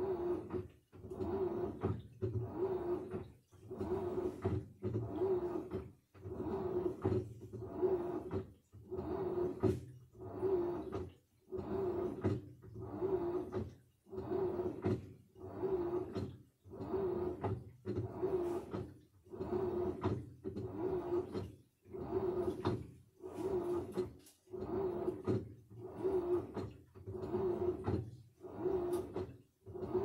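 Samsung front-loading washing machine running its wash cycle: the drum turns, and the motor hum and the sloshing of water and wet clothes rise and fall in a steady rhythm about once a second.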